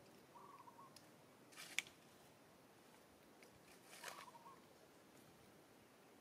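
Near silence, broken by a few faint sharp clicks, the loudest about two seconds in, and two short faint chirps a few seconds apart.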